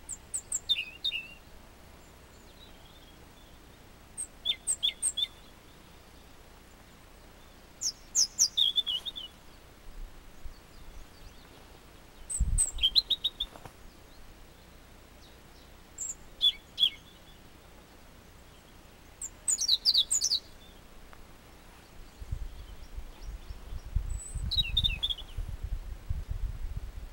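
European robin singing: short phrases of high, thin, falling notes, each about a second long, repeated every four seconds or so. A low rumble comes in during the last few seconds.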